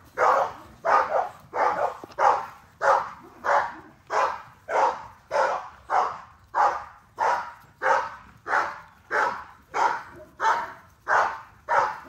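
A dog barking over and over in a steady, even rhythm, about one and a half barks a second.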